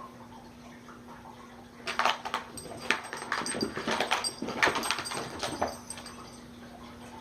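A cat pawing at a penny inside a basket: a burst of rattling, clicking and scraping that lasts a few seconds in the middle, with a steady low hum underneath.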